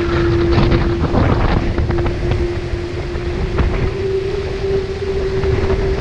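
Diam 24 trimaran sailing fast in strong wind: wind buffeting the microphone and water rushing along the hull, with splashes of spray in the first couple of seconds. A steady humming tone runs underneath and rises a little in pitch about halfway through.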